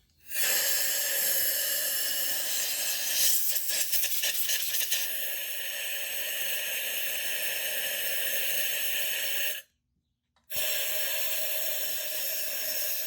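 Compressed-air blow gun hissing steadily for about nine seconds, cutting off for a moment, then hissing again for about three seconds: blowing water out of the spark plug wells, where the water was causing misfires.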